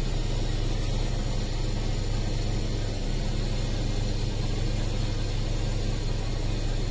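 Truck's diesel engine idling steadily, a low even hum.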